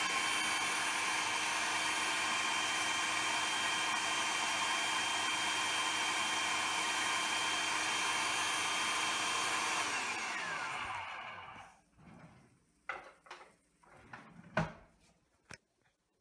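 Food processor motor running steadily on its puree setting, blending boiled cauliflower. About ten seconds in it is switched off and spins down with a falling whine, followed by a few light knocks and clicks.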